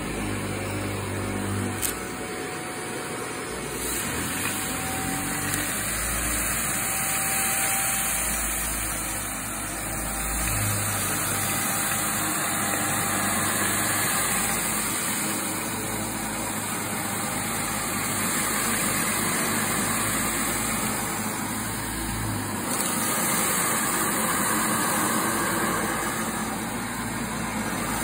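Upright vacuum cleaner running steadily as it is pushed over carpet, sucking up fine dirt. Its sound shifts every several seconds as it is moved.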